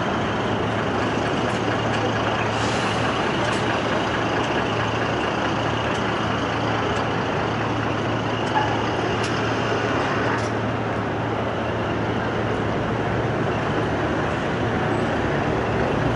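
Steady city road traffic: a continuous wash of vehicle noise with a low, even engine hum from heavy vehicles such as buses or trucks.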